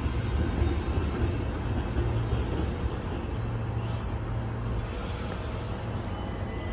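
Brisbane electric suburban passenger train running with a steady low rumble and rail noise, with brief hisses about four and five seconds in.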